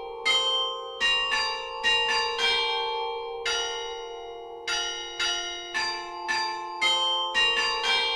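Carillon of the Ghent Belfry playing a tune: single bell notes struck one after another at an uneven pace, one or two a second, each ringing on beneath the next.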